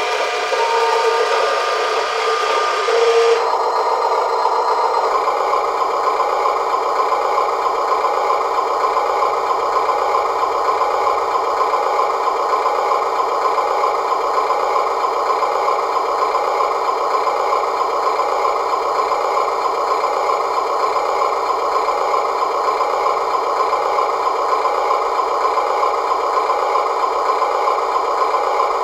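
Amewi Arocs 1:16 RC tipper truck running with a steady, even mechanical hum. The hum has a fine fast ripple and settles into an unchanging sound a few seconds in.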